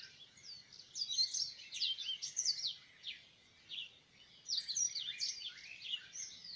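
Small birds chirping and twittering in quick runs of short, falling notes, in two bursts: one about a second in and one about four and a half seconds in.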